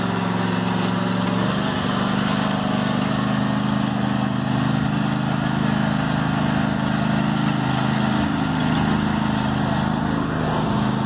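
Riding lawn mower's engine running steadily as the mower drives across the grass, its pitch shifting slightly about a second and a half in.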